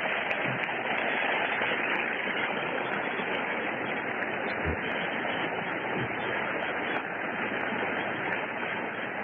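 Large audience applauding steadily, heard through an old recording with a narrow, muffled range.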